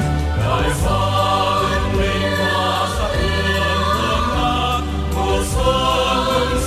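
Mixed choir of men and women singing in Vietnamese with musical accompaniment, holding long sustained notes.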